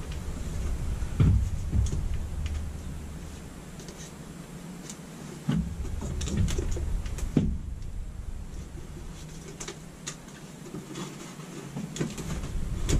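Irregular knocks, clicks and scrapes of hands working the mounting hardware of a camper's rooftop air conditioner through its ceiling opening, with a few dull low thuds.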